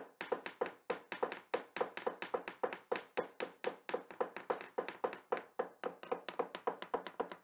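Rapid, evenly spaced tapping, about four sharp taps a second, with a faint high ring held between them.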